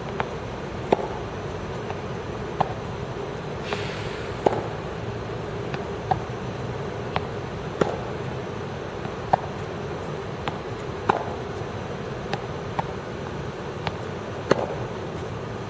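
Tennis balls being struck by rackets and bouncing on the court during a rally drill: a sharp pop every second or so, some in quick pairs, over a steady background hum.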